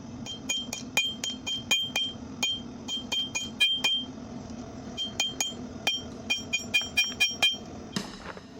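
Blacksmith's hammer striking metal on an anvil, about four quick blows a second, each with a bright ringing ping. The blows come in two runs with a short pause about halfway through.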